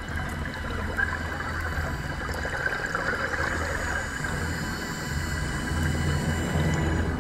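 Underwater ambience picked up by a camera in a waterproof housing: a muffled, steady rush and hiss of water with a low rumble that grows louder near the end.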